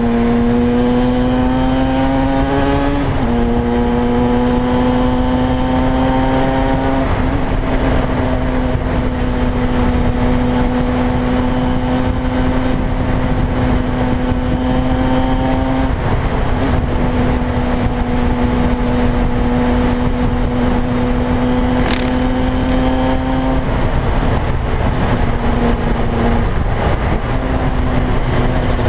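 KTM 125 EXC's two-stroke single-cylinder engine under way: the revs climb, drop at an upshift about three seconds in, climb again and then hold steady at cruising speed. The revs dip briefly about halfway through and again near the end before picking back up, over a constant rush of wind.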